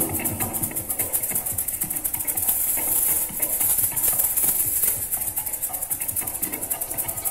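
A pair of maracas shaken in a fast, steady rhythm.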